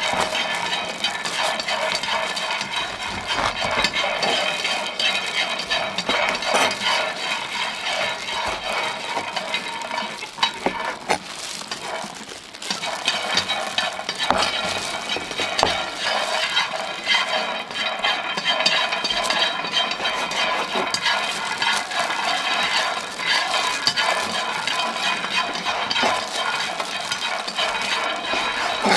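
Peanuts dry-roasting in a pan, stirred so they rattle and scrape steadily against the pan, with a brief lull about twelve seconds in.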